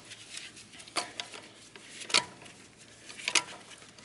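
Sharp metallic clicks and light clinks, three louder ones about a second apart, as car wheel bolts are worked loose and taken out.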